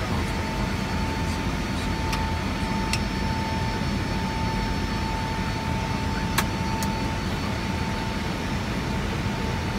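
Steady rush of airflow and jet engine noise inside an Airbus airliner's cockpit, with a thin steady whine and a few sharp clicks, the loudest about six seconds in.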